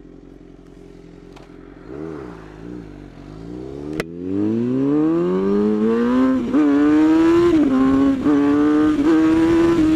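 Motorcycle engine running steadily, giving a few short revs, then accelerating hard. Its pitch climbs for about two seconds and then stays high with several brief dips like gear changes, getting much louder.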